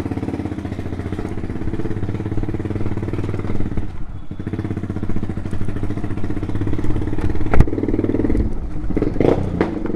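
Loud-exhaust motorcycle engine running steadily while riding, easing off briefly about four seconds in. A single sharp knock about seven and a half seconds in is the loudest sound, and a few short revs follow near the end.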